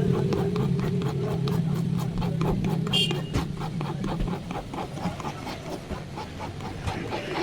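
A machine running with a steady rapid ticking, about four to five a second, over a low hum that fades out about halfway through; a brief high chirp sounds about three seconds in.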